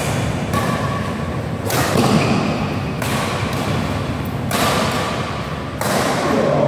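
Badminton rackets striking the shuttlecock in a fast doubles rally: about five sharp hits, one every second and a half or so, each ringing on in a large hall.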